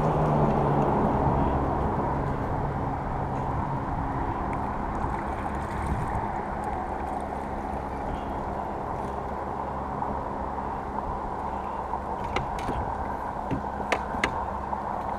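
A steady engine rumble, loudest and most clearly pitched for the first few seconds and then easing off, with a few sharp clicks near the end.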